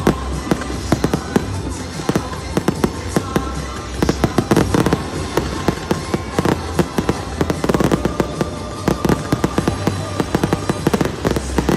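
Fireworks display: many aerial shells bursting in quick succession, a dense, continuous run of bangs and crackles with several reports a second.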